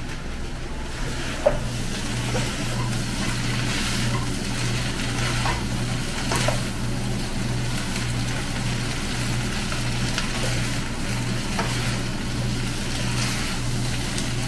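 Stir-fried noodles and vegetables sizzling in a frying pan as they are tossed with a wooden spatula, with occasional scrapes and clacks of the spatula against the pan, over a steady low hum.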